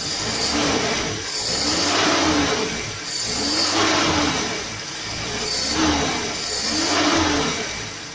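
Mitsubishi Colt T120 engine being revved in repeated throttle blips, about five times, its pitch rising and falling with each blip.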